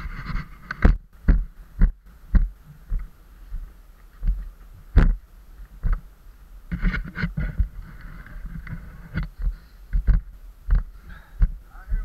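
Footsteps thudding down a rocky dirt trail, with the body-worn camera jolting at each step: irregular thumps, a little under two a second, with faint rustling between them.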